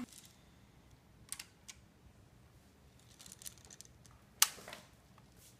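Light, scattered plastic clicks and taps of Magformers magnetic ABS tiles being handled and snapped onto a model, with the sharpest click about four and a half seconds in.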